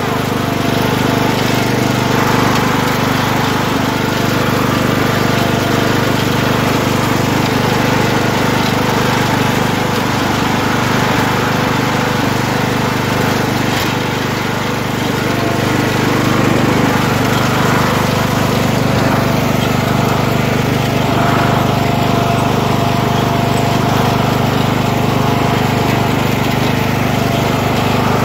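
Riding lawn mower's engine running steadily while the mower is driven along.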